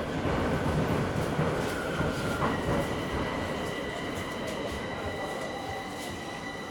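Metro train car running through a tunnel, heard from inside the car. The wheel and track rumble eases off as the train slows for a station, and about two and a half seconds in a steady high whine sets in and holds.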